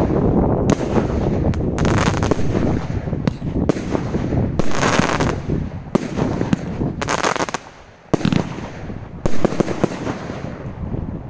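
37-shot firework barrage cake firing: a rapid, loud series of shots and mid-air bursts. There is a brief lull partway through, then a few more shots before it thins out.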